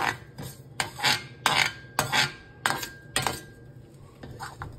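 Steel spoon stirring mustard seeds in sesame oil in a stainless steel pan, clinking and scraping against the pan about a dozen times at an uneven pace.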